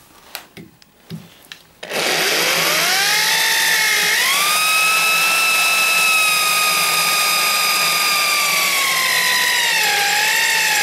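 Electric hand drill starting about two seconds in and boring into a metal tube with a freshly sharpened 6 mm twist bit: a steady motor whine that rises in pitch as it comes up to speed, then dips slightly near the end. The resharpened bit is cutting well, throwing good chips.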